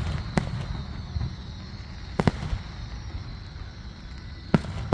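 Fireworks exploding: four sharp bangs at uneven spacing, each with a short echoing tail, over a continuous low rumble from the display.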